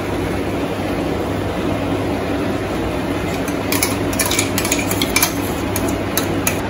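Metal spoon stirring thick masala in a pan, clinking and scraping against the pan in a quick run of sharp clicks from about halfway through, over a steady low hum.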